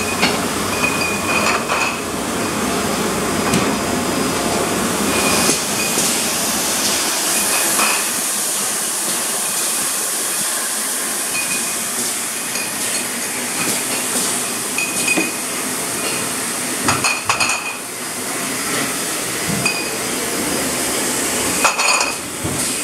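Sparkling-wine disgorging and corking line running with a steady machine hiss. Glass bottles clink and knock against each other and the steel guides every second or few.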